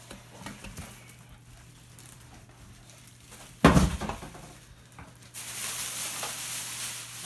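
A loud thud about two-thirds of the way in as the heavy electric pressure cooker is set down on the countertop, then loud rustling and crinkling of the plastic bag being pulled off it.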